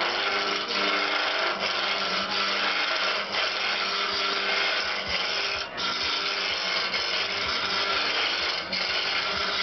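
Wood lathe spinning a wooden buffet-foot spindle at about 1500 rpm while a hand-held turning tool cuts it, giving a steady hiss of shavings being peeled off. The cut breaks off briefly about six seconds in as the tool lifts.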